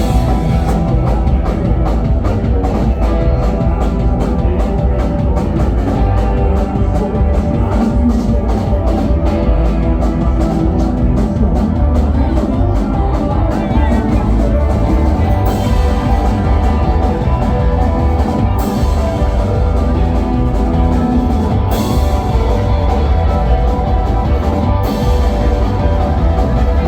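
Live rock-style band playing an instrumental passage with a steady, driving drum-kit beat. In the second half, loud cymbal crashes hit about every three seconds, four times.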